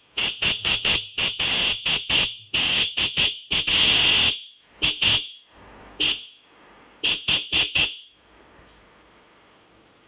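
12-volt electric motorcycle horn, run off a battery, sounded in a quick series of short high honks with one longer blast about four seconds in. The honks stop about eight seconds in.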